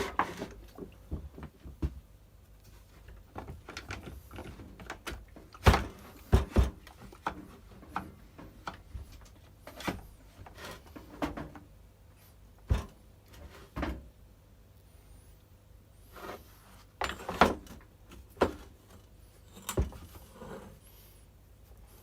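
Irregular knocks and clunks of parts being handled as a Stihl FS240 brush cutter's drive shaft is fitted back onto its engine housing. About ten separate hits are spread unevenly, the loudest about six seconds in and again around seventeen seconds.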